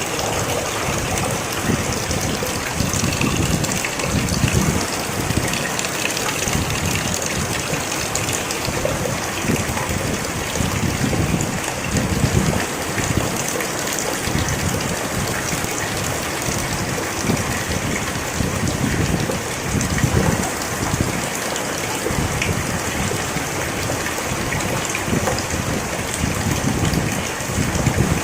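Steady rain falling, a dense hiss of drops with an uneven low rumble underneath.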